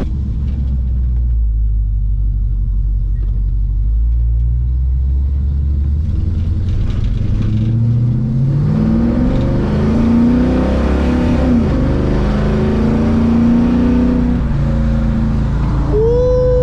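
1968 Dodge Super Bee's big-block V8 running through a new 3-inch exhaust, with a steady low rumble at first. About halfway through it accelerates, its pitch climbing and dropping several times as it revs through the gears.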